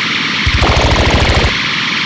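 Dense chorus of common true katydids, a loud, rapid rasping pulse of many insects at once. About half a second in, a pulsing low rumble joins the chorus for about a second, then drops out.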